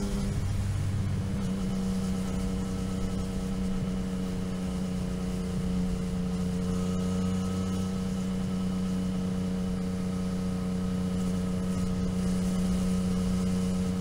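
Motorcycle engine running at a steady engine speed, its pitch held level throughout, over road and wind noise.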